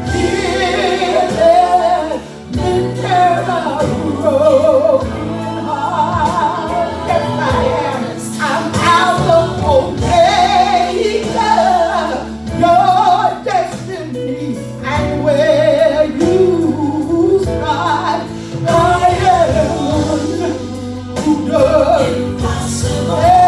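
Gospel music: a female voice singing a wavering, drawn-out melody over a band accompaniment.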